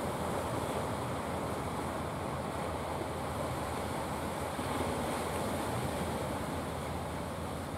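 Steady rushing noise of sea surf washing onto the beach.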